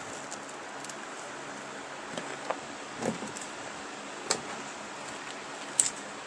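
A few light clicks and taps from wires and a plastic harness connector being handled, spaced irregularly over a steady hiss.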